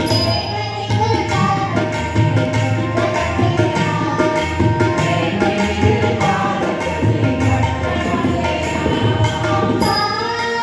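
A group of singers performing a Tamil devotional song together, accompanied by regular tabla strokes and a harmonium.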